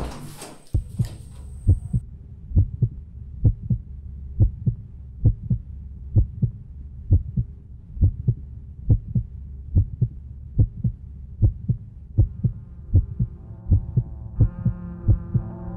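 Heartbeat sound effect: paired low thumps, lub-dub, repeating at about one beat a second over a steady low hum. Over the last few seconds a sustained synth chord fades in and grows louder.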